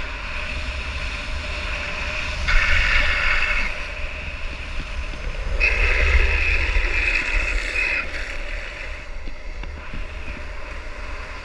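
Wind rushing over a helmet-mounted camera's microphone at downhill speed, with the rumble of skate wheels rolling on asphalt. Twice the wheels squeal as they slide on the asphalt: briefly about two and a half seconds in, then for about two seconds from near the middle.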